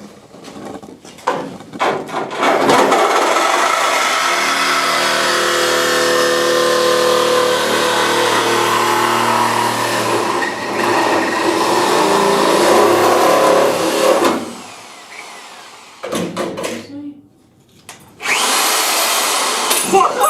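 Power drill running under load, drilling out spot welds in car-body sheet steel: one long steady run of about twelve seconds, then two shorter bursts near the end.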